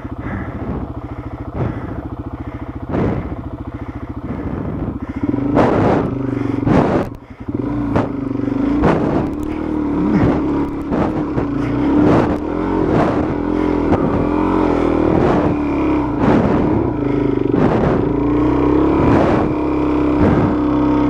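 Dual-sport motorcycle engine running at low revs with a pulsing beat, then opening up about five seconds in and pulling steadily under load. Repeated knocks and clatter from the bike working over rough, slick ground run through it, with a brief dip about seven seconds in.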